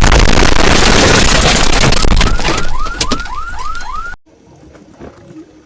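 Deafening, distorted blast of noise with a short rising car-alarm-like whoop repeating several times a second over its second half. It cuts off abruptly about four seconds in, leaving only faint sounds.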